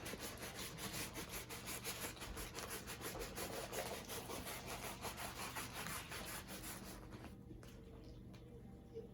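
A diamond painting canvas being rolled up by hand: a quick, scratchy rubbing of canvas and its plastic cover against itself, several strokes a second, that stops about seven seconds in.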